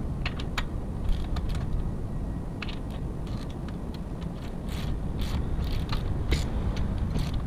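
Wrench tightening the nut on a clutch pedal's pivot bolt: irregular metallic clicks and short rasps of tool on metal.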